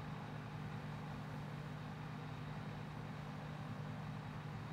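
Steady low mechanical hum with a faint even hiss over it, unchanging throughout.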